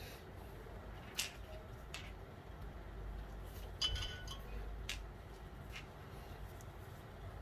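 Scattered light metallic clinks and taps, about five in all, from small steel screws and hand tools being picked up and set down; one clink about four seconds in rings briefly.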